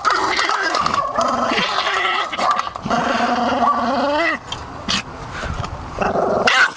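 Agitated, angry dog growling and whining in long, drawn-out vocalisations. One rises in pitch at its end about four seconds in, and a louder outburst comes near the end.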